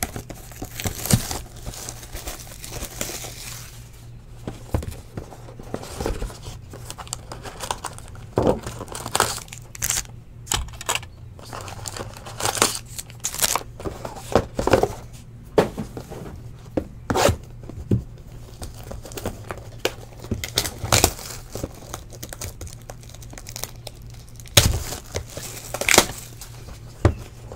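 Wrapping being torn and crumpled off a sealed Panini trading-card hobby box, with the cardboard box handled and opened: irregular crinkles, rips and clicks.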